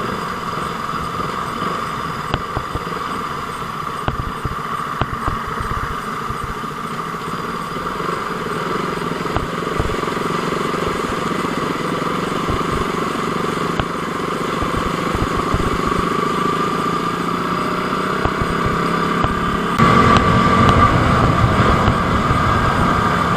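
KTM motorcycle engine running at a steady pace while riding, with road noise. It gets louder near the end.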